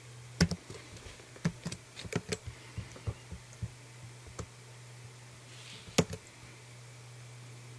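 Scattered computer keyboard keystrokes and mouse clicks, irregular and separate, the loudest about six seconds in, over a steady low hum.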